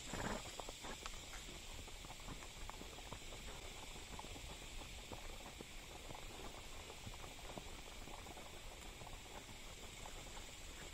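Horses walking along a dirt woodland trail: soft, irregular hoof falls mixed with light rustling of grass and brush, over a steady high hiss.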